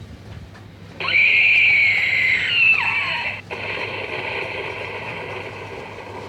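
Battery-powered Halloween decoration setting off a recorded shriek through its small speaker. It starts suddenly about a second in, slides down in pitch, and then turns into a steady hissing sound.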